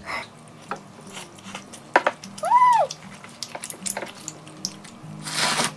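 Table sounds during a meal: scattered light clicks of chopsticks and dishes, a short high squeak that rises and falls about two and a half seconds in, and a brief hissing slurp of ramen near the end.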